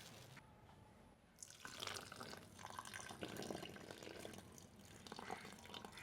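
Liquid running and splashing, with small drips and clicks, starting about a second and a half in.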